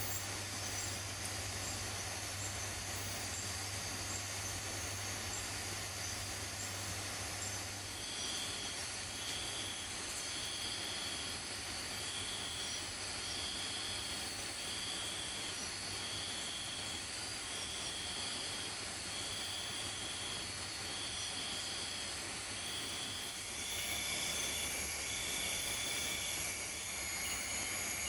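Forest insect chorus: a steady hiss with thin, high, steady insect trills. From about eight seconds in, a short high call repeats about once a second. Near the end the chorus changes to a different mix of steady tones.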